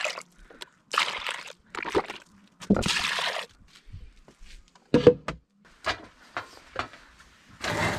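Warm water taken from a muuripata, a wood-fired cast-iron cauldron, and poured in several short pours, with a few knocks of the vessel in between.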